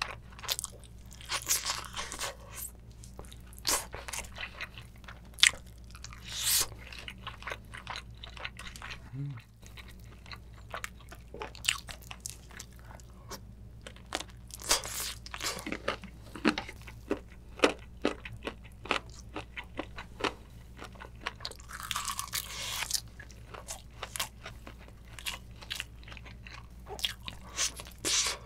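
Close-miked eating of a soft braised chicken drumstick in spicy sauce: biting and pulling meat off the bone and chewing it, with many sharp wet mouth clicks and a few longer sucking noises.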